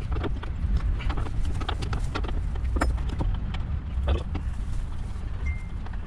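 Irregular small clicks and knocks of hand tools and fittings as bolts are undone from a van's rear lamp cluster, over a steady low rumble.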